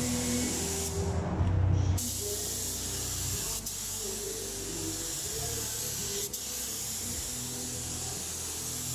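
Air-fed paint spray gun hissing steadily as it sprays paint onto an aircraft fuselage. The hiss starts abruptly about two seconds in and dips briefly twice, with background music playing underneath.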